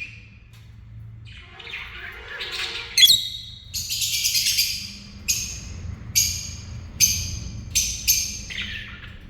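Pet lovebirds chattering and squawking: harsh high-pitched chatter, a loud call about three seconds in, then a run of sharp squawks about once a second.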